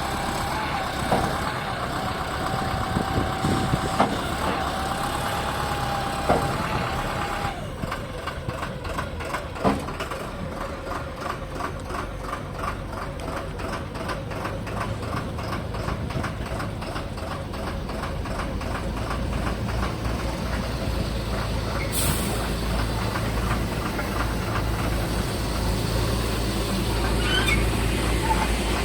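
Backhoe loader's diesel engine running while the machine works. A steady whine is heard for the first seven seconds or so, with a few sharp clanks. From about 14 s the engine note grows heavier, and there is a short hiss about 22 seconds in.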